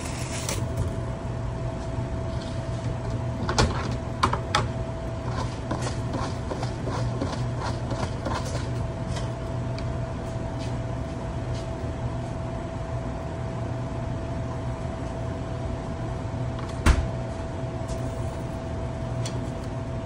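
Commercial kitchen background: a steady equipment hum with a constant mid-pitched tone. Over it come scattered clicks and clatter of handling from about three and a half to nine seconds in, and a single sharp knock, the loudest sound, about seventeen seconds in.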